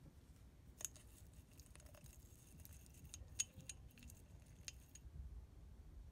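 Faint, scattered clicks and ticks of a glass jar and wire pipe-cleaner handle being handled as the handle is twisted on, with one sharper tick about three and a half seconds in; the clicks stop about five seconds in.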